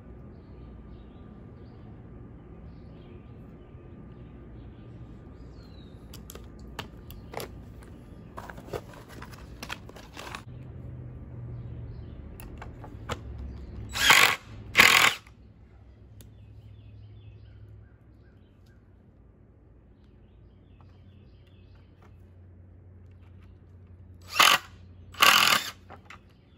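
Cordless drill driving screws into weathered wooden boards: two short bursts about 14 seconds in and two more near the end. Light clicks and knocks of handling the boards and screws come before the first bursts.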